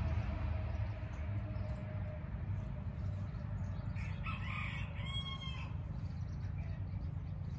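A bird calling about four to five seconds in, a short call with a rise-and-fall pitch, over a steady low rumble.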